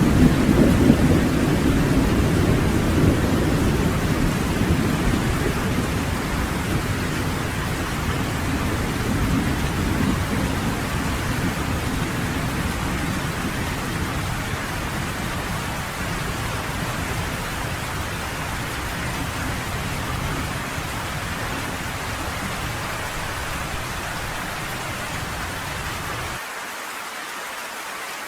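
Steady heavy rain with a long roll of thunder that slowly fades away over the first half. Near the end the deep rumble drops out suddenly, leaving only the hiss of the rain.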